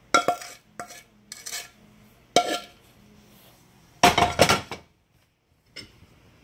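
A metal spoon scraping and clinking against a cooking pan in short strokes as thick cooked coconut mixture is scraped out onto a plate. About four seconds in there is a longer, louder scrape.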